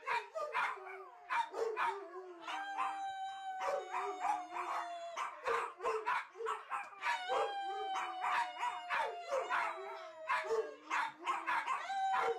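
Several pet dogs howling together: long drawn-out howls, each sliding slowly down in pitch, overlapping one another and broken up by short sharp yips and barks.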